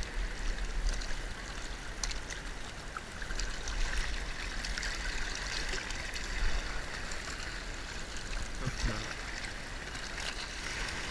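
Shallow seawater lapping and trickling over shell-covered rocks at the water's edge, with a steady low rumble underneath and a few faint clicks.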